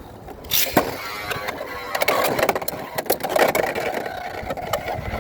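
Beyblade X spinning tops ripped from their launchers into a plastic stadium about half a second in, then spinning, clattering and colliding with each other and the stadium walls, with a steady spinning whine near the end as a top spins on.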